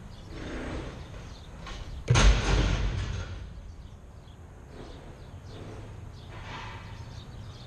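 A single heavy thud about two seconds in, trailing off over about a second, over a low steady background.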